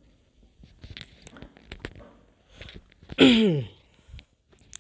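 A man's short, breathy vocal sound about three seconds in, loud and falling steeply in pitch, after a few faint clicks and rustles.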